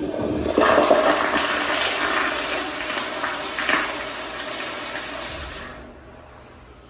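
American Standard restroom fixture flushing: a loud rush of water that surges about half a second in, then tapers off and dies away near six seconds.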